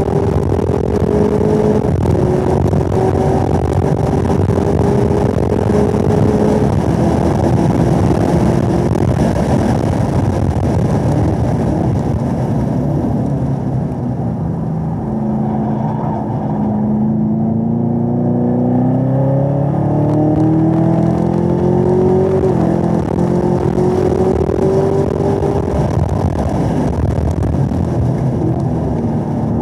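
Chevrolet Camaro ZL1's supercharged 6.2-litre LT4 V8 at full throttle on track, heard from inside the car. The engine runs high near 6,000 rpm, drops in pitch under braking about halfway through, then rises steadily as the car accelerates hard, with an upshift of its 10-speed automatic about three-quarters through.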